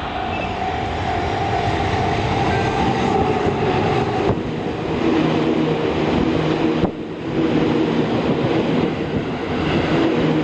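EF200 electric locomotive and its delivery train passing close by at speed: traction-motor whine over the rumble and clatter of wheels on rail. A higher whine fades out about four seconds in, and lower motor tones carry on.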